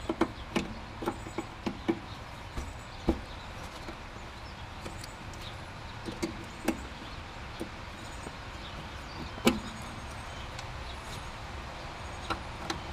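Hand tools clicking and knocking against metal at irregular intervals while cotter pins are pulled and castle nuts loosened on a car's front suspension, over a steady low hum. The loudest knock comes about nine and a half seconds in.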